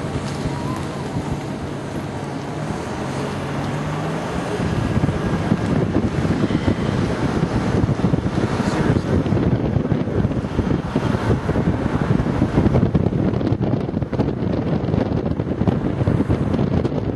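Car engine running with a slight rise in pitch, then heavy wind buffeting the microphone from about five seconds in as the car gathers speed.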